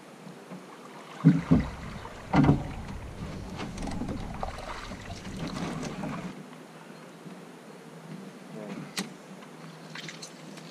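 Handling noise in a small open boat as a bull huss is hauled aboard by hand: two heavy thumps a second or so apart, then a few seconds of deep rumble, and a couple of light clicks near the end.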